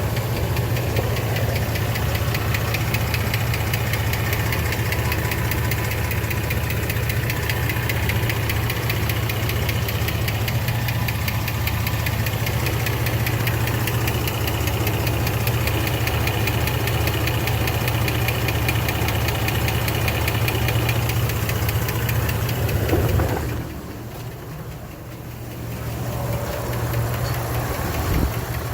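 2006 Jeep Liberty 3.7 L V6 engine idling with a steady, rapid ticking from the valvetrain, the sign of a sticking hydraulic lifter. The sound drops quieter for a few seconds near the end, then comes back.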